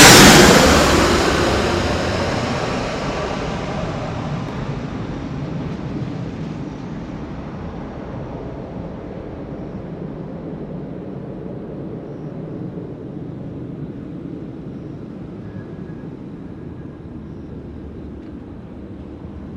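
Embraer E175 airliner's turbofan engines, loud at first as the landing jet passes close, then fading over several seconds into a steady low distant rumble.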